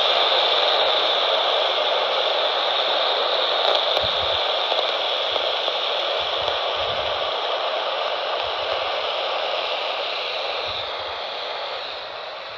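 Steady hiss of radio static from a receiver pulling in a weak, distant station, easing off a little near the end.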